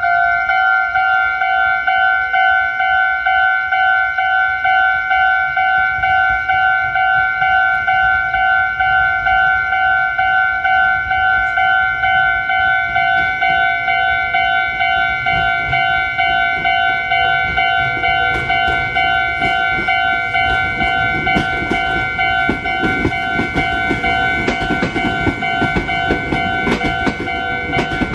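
Japanese level-crossing warning bell ringing, an electronic two-tone ding repeating rapidly and evenly. From about halfway in, a Meitetsu electric train approaches and passes through the crossing, with a growing rumble and wheels clacking over the rail joints.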